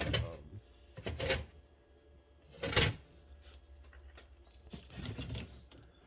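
Rummaging through boxes of car parts: a few short bursts of rustling and clattering, the loudest nearly three seconds in.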